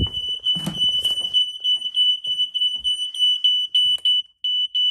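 Ceiling smoke detector alarm sounding a loud, high-pitched tone, steady at first and then breaking into quick beeps in the second half. A few knocks near the start.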